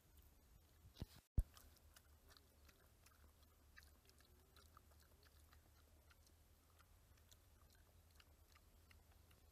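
Faint crackling of hard-boiled egg shells being peeled by hand, with quiet chewing. Two sharp clicks about a second in, the second the loudest.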